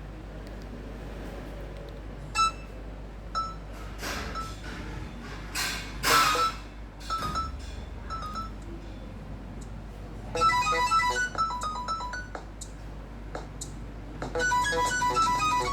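Nokia 3110 classic's speaker playing old Nokia 6100 ringtones. Scattered short beeps and a few brief noises come first. A ringtone melody starts about ten seconds in and stops after about two seconds, and another begins near the end.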